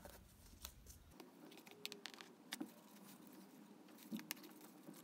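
Faint scattered clicks and rustles of hands pulling the outer covering off a TV power cord.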